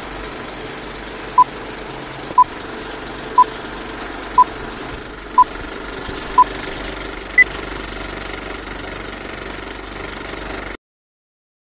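Old-film countdown leader sound effect: a film projector clattering steadily under six short beeps one second apart, then a seventh, higher beep a second later. The clatter cuts off suddenly near the end.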